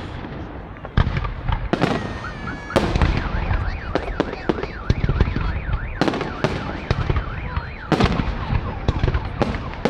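Fireworks display: a dense run of sharp bangs from bursting shells over a continuous low rumble. From about three seconds in, an alarm tone warbles up and down for a few seconds.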